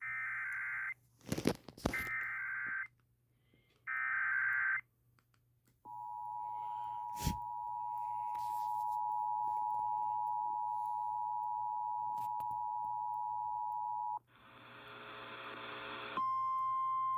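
Emergency Alert System header heard on a radio: three one-second digital data bursts about a second apart, then the steady two-tone attention signal for about eight seconds. It breaks into about two seconds of hissing noise, and a single steady alert tone starts near the end, with a few sharp crackles along the way.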